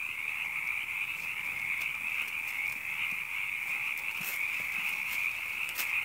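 A dense chorus of frogs calling, blending into one steady high-pitched trill.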